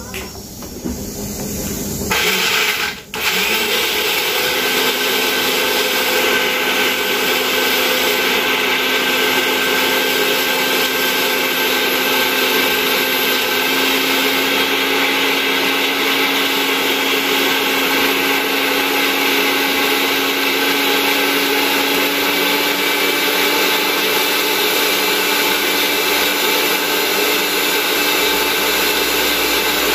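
Electric mixer grinder motor running at full speed with a steady, even hum, grinding onion, dried and green chillies, ginger and garlic into a paste. It starts about two seconds in, cuts out briefly a second later, then runs without a break.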